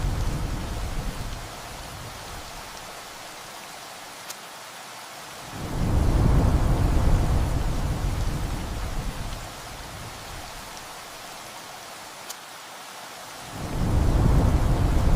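Steady heavy rain with rolling thunder: a rumble fades out in the first second or two, another swells about six seconds in and dies away over some four seconds, and a third begins near the end. A couple of single drop ticks stand out from the rain.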